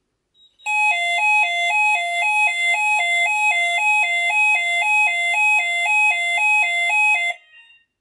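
Fire alarm sounder going off with a loud two-tone alarm, switching between a higher and a lower pitch about twice a second, then cutting off suddenly near the end. The system has gone into alarm from a smoke detector under test.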